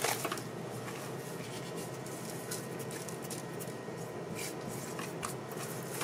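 Faint rubbing and soft handling of a hand working salt into raw redfish fillets in a bowl, with a few light ticks.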